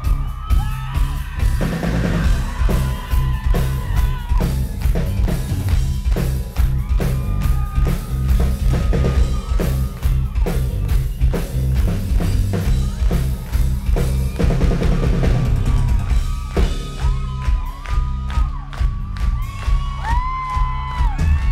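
A rock band playing live and loud: a drum kit keeping a steady beat over heavy bass, with electric guitar and a melody line on top.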